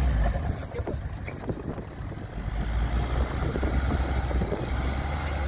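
SUV engine running in deep soft sand with a low rumble. The rumble eases off about half a second in and builds again from about two and a half seconds.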